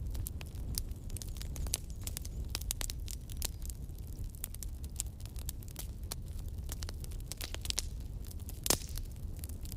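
Campfire burning: wood crackling with frequent sharp pops over a steady low rumble of flame, one louder pop near the end.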